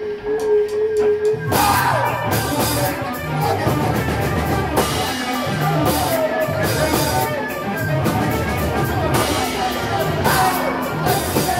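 Live band music. A single note pulses steadily, about two or three times a second, over light ticks. About a second and a half in, the full band comes in loud with drums and distorted guitars.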